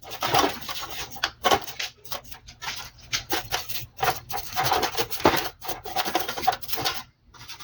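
Irregular hand scraping strokes, rasping back and forth across a surface several times a second, as old gasket material is cleaned off the carburettor mounting face.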